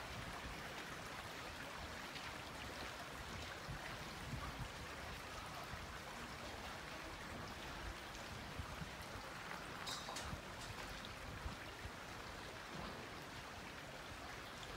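Steady, even rushing of a flowing stream.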